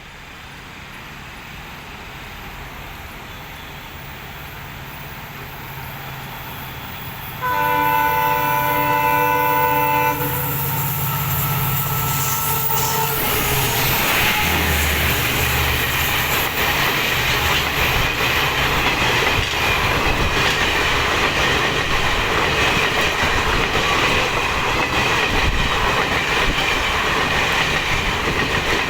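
Garib Rath express train approaching, its locomotive sounding a multi-tone horn for about two and a half seconds about a third of the way in, one note lingering a little longer. The coaches then pass close by with loud wheel noise and clickety-clack over the rail joints.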